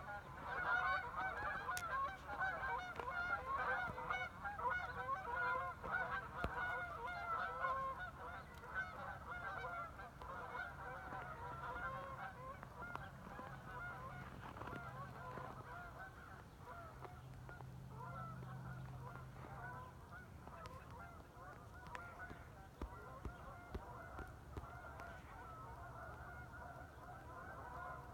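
A large flock of geese flying over, many birds honking at once in a dense, overlapping chorus. The calling is loudest in the first several seconds and fades as the flock moves away.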